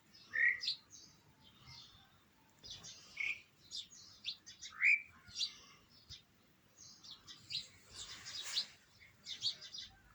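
A bird chirping in a busy run of short, high chirps mixed with quick rising calls, with one louder, harsher call about eight and a half seconds in.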